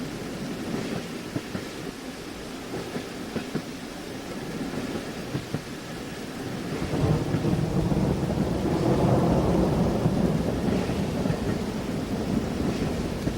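Steady rain heard from inside a train compartment, with scattered clacks of the train wheels on rail joints. About seven seconds in, a deep low rumble swells up, then slowly eases off.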